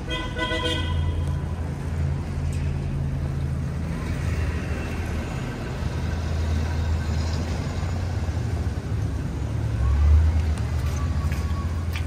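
A vehicle horn toots briefly, over the steady low engine rumble of street traffic, which swells for a moment about ten seconds in.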